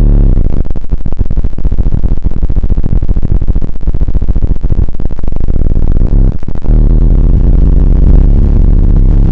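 SOMA Lyra-8 drone synthesizer playing a deep, bass-heavy drone with its oscillators modulating each other. For about six seconds the sound is a rough, fast-fluttering growl, then it settles into a steadier chord of low tones.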